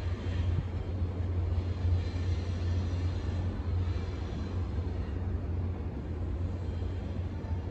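Low, steady rumble of a departing Caltrain diesel commuter train, slowly fading as it pulls away.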